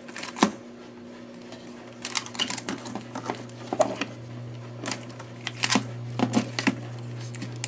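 Scattered light clicks and clinks of a Torx driver, screws and small metal parts being handled while an iMac is taken apart, over the steady low hum of a clothes dryer running.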